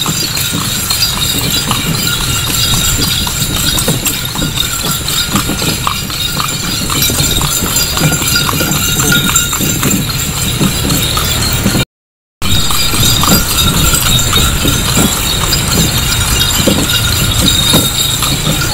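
Horse's hooves clip-clopping on a paved road as it pulls a carriage along at a steady pace. The sound breaks off completely for about half a second near twelve seconds in.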